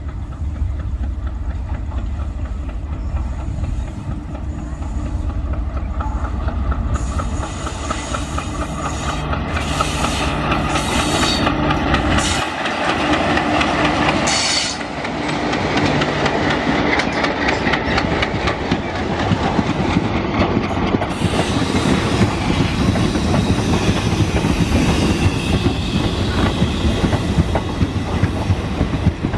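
An ALCo WDM3A diesel locomotive's 16-cylinder engine rumbling as it approaches and passes a little before halfway, followed by the passenger coaches' wheels clattering rapidly over the rail joints as the train rolls past.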